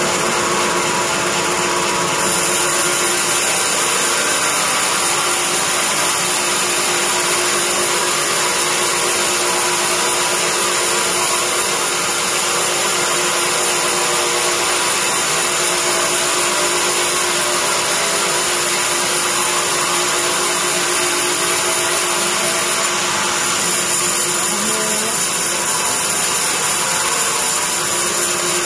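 Bandsaw mill sawing a hard teak beam on its log carriage: a loud, steady machine noise of the running band blade and carriage, with little change throughout.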